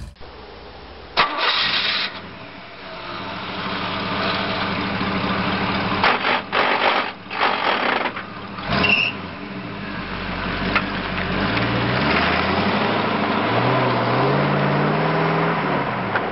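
Car engine starting and revving, with a few short loud bursts in the first half and revs rising and falling near the end.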